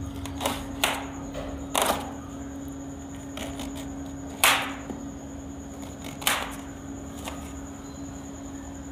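Knife cutting through a head of cabbage onto a plastic tray: about half a dozen sharp cuts at irregular intervals, over a steady hum.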